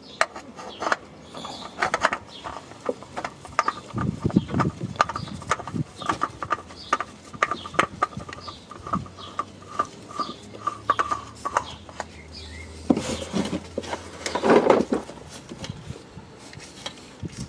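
A new oil filter being screwed onto a car engine: irregular clicks and scraping, with a run of short squeaks around the middle and a louder scrape near the end.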